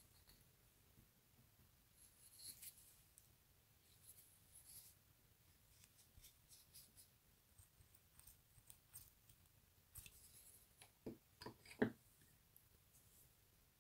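Near silence with faint rustles and small ticks of fingers handling a grit-covered caddis casing against a fly held in a fly-tying vise. A few sharper clicks come near the end.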